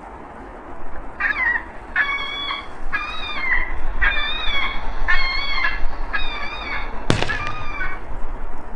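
A bird calls repeatedly: about seven wavering calls, each about half a second long, over a steady low rumble. A single sharp click comes near the end.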